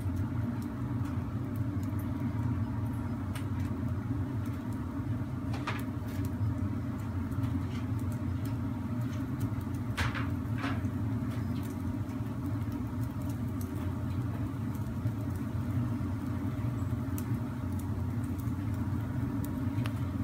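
Steady low hum from a grill running on full blast and the kitchen ventilation around it, with a few faint ticks around six and ten seconds in.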